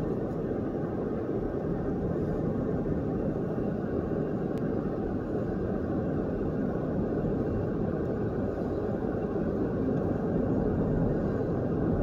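Steady road and engine rumble of a moving car, heard from inside the cabin with the windows closed.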